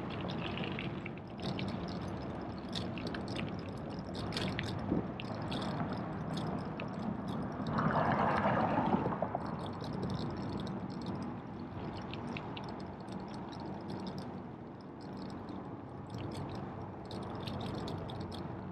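Bicycle ride noise: a steady rush of tyre and wind noise with many small rattling clicks, swelling louder for about a second around eight seconds in.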